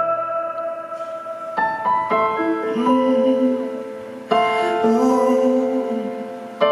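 Piano playing slow chords in a ballad's closing bars, each chord struck and left to ring out.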